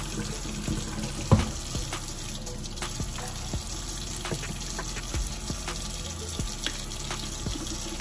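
Kitchen faucet running steadily into a stainless steel sink while plastic breast pump parts and bottles are hand-washed under it, with scattered light knocks of plastic being handled and one louder knock about a second in.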